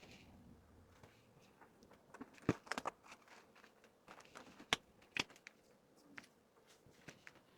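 Hands handling merchandise and packaging: scattered light clicks and taps with faint rustling, the sharpest about two and a half seconds in and again near five seconds in.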